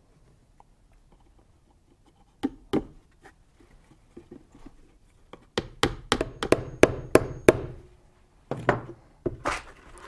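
A hammer driving nails through the wooden roof boards of a birdhouse. Two knocks come a couple of seconds in, then a few light taps, then a quick run of about ten sharp blows, and two more blows near the end.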